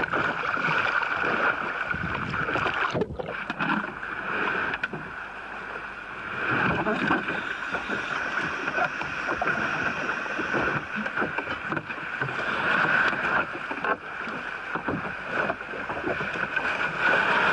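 On board a small open boat at sea: a steady drone with water and wind noise, and scattered knocks of a heavy catch and ropes being handled in the hull.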